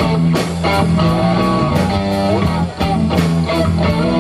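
Live rock band playing amplified electric guitars, bass guitar and drum kit with a steady beat, without vocals.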